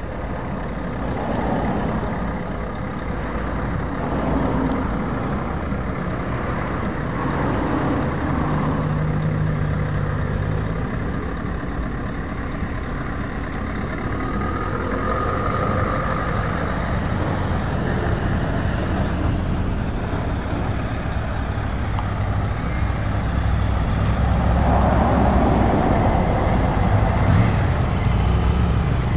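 Scania 660 S's 16-litre V8 diesel engine running as the tractor unit drives slowly past and pulls away, its pitch shifting as it goes, growing louder over the last few seconds.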